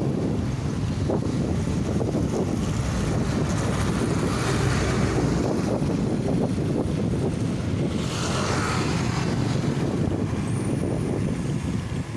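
Wind buffeting the microphone of a rider going downhill: a steady, heavy low rushing with no clear engine note.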